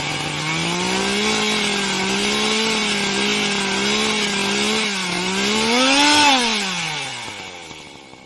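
Chainsaw engine running at high speed, its pitch wavering, then revving up about six seconds in before winding down and fading out.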